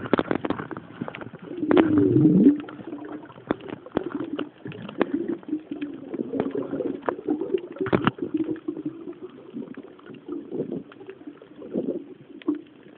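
Muffled underwater sound: a low wavering hum that dips in pitch about two seconds in, with scattered sharp clicks throughout.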